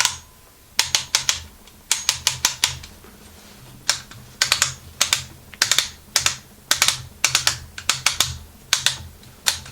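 Clusters of sharp clicks, three to five in quick succession, repeating every second or so with short gaps, over a faint low hum.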